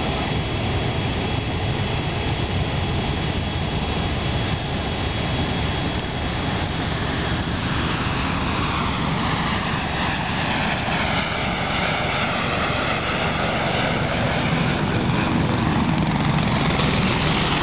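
Boeing 787 Dreamliner's Rolls-Royce Trent 1000 jet engines running as the airliner rolls out after touchdown, with a faint steady whine in the first few seconds. The noise grows louder as it passes close and takes on a swirling hiss that sweeps up and down in pitch.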